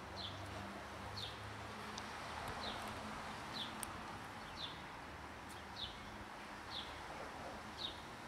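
A bird repeating a short, high, downward-sliding call about once a second, over a faint steady low hum.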